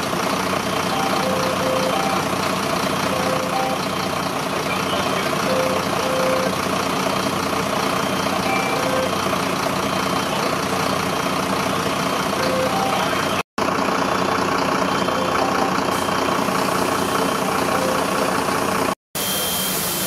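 Fire engine's diesel engine running steadily at idle. The sound drops out abruptly twice, briefly, about two-thirds of the way through and near the end.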